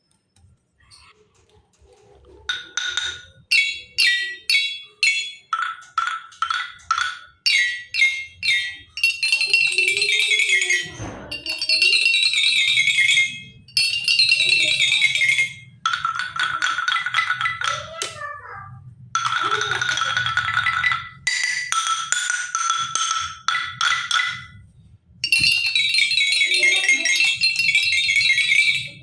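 Xylophone with coloured bars struck with a mallet: separate single notes at first, then fast runs along the bars in bursts of about two seconds, with short pauses between them.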